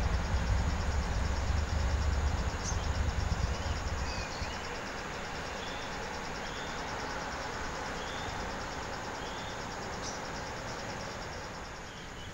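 Insects trilling in a steady, evenly pulsed high rhythm, with a few short bird chirps. A low rumble fades out about four seconds in.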